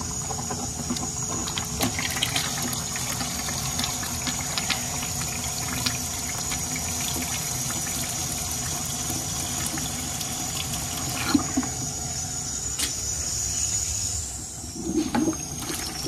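Water mixed with air spurting from a drain hose into a plastic bucket, a steady splashing rush that eases off near the end. It is air being purged from an air-bound hot-water heating system, the reason the zones were not heating.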